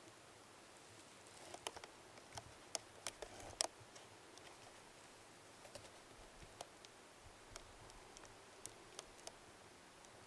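Near silence with faint, sharp clicks and ticks scattered through it, most of them bunched between about one and a half and four seconds in.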